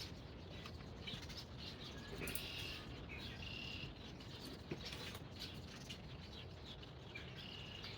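Birds chirping faintly in the background: short, high, repeated chirps every second or so, with one brief click.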